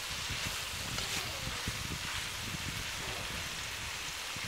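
Beef strips, bell peppers and onion sizzling in a nonstick frying pan, a steady hiss, with a wooden spoon stirring and knocking through them for the first few seconds.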